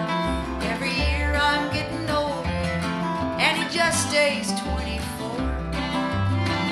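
Country song playing: acoustic guitar over a steady, regular bass beat, with a singing voice coming in at times.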